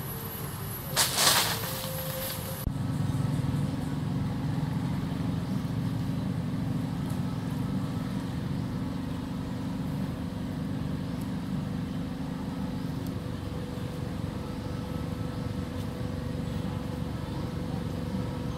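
A long-tailed macaque's harsh scream about a second in, lasting under two seconds and cut off sharply, followed by a steady low engine drone.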